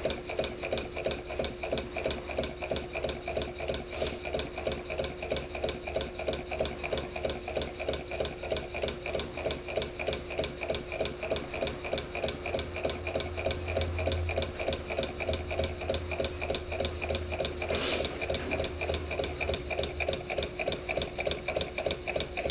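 Homemade tuna-can Stirling engine running on the heat of a glass-ceramic hob, its crank and rods ticking in a quick, even rhythm with each turn of the flywheel.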